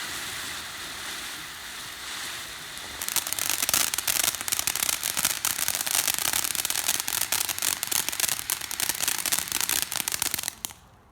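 Pyro Blast consumer firework hissing at first. About three seconds in it breaks into loud, dense crackling for around seven seconds, then stops abruptly near the end.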